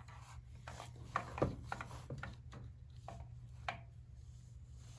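Light clicks and scrapes of metal parts being handled as the old distributor is worked loose and lifted out of a small-block Chevy V8, with two sharper clicks about a second and a half and three and a half seconds in, over a steady low hum.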